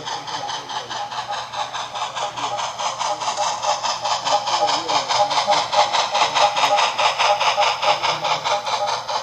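Steam exhaust chuffing from the Soundtraxx Tsunami sound decoder in a Bachmann Spectrum HO-scale C&O USRA 2-6-6-2 Mallet, working as a pusher at the rear of a coal train. The chuffs are fast and even, about seven a second, over a steady tone, and grow louder about halfway through as the locomotive passes close.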